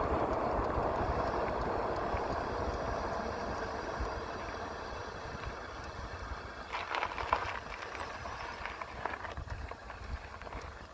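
Wind rush on the microphone and tyre noise from an e-bike rolling along a paved road, gradually fading, with a short run of rattles and knocks about seven seconds in.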